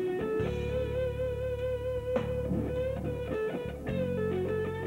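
Soundtrack music led by an electric guitar holding one long note that slides up into place at the start, over steady low bass notes.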